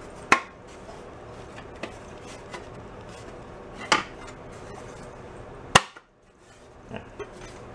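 Sheet-metal gas tank pieces being handled and test-fitted against a bicycle frame, knocking metal on metal three times: about a third of a second in, around four seconds in, and most sharply near six seconds.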